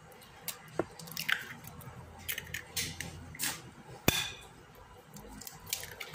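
Raw eggs being cracked and dropped one at a time into a glass bowl of raw seasoned chicken pieces: short shell taps and wet, squishy drops. The sharpest tap comes about four seconds in.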